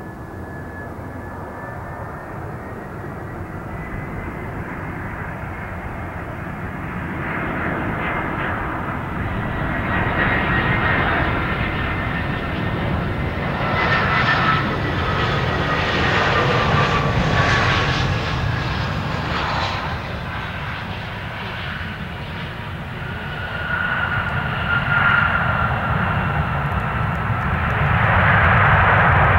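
Airbus A320 airliner's CFM56 turbofan engines on landing approach: a jet whine and rumble that grows louder as the aircraft nears, with a high tone that glides down in pitch as it passes. It swells again near the end as the jet rolls out on the runway.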